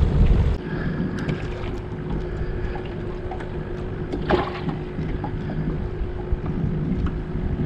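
Steady low rumble of a small fishing boat on the water with wind on the microphone, a faint steady hum under it and a few light clicks, and one brief sharper sound about four seconds in.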